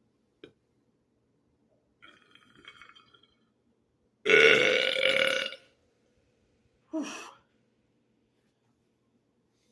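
A man burping deliberately: one long, loud burp lasting over a second about four seconds in, then a short one about three seconds later.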